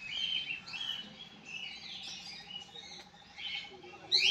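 Several birds chirping and calling, many short whistled notes overlapping, over a faint steady pulsing trill; a louder swooping call comes in right at the end.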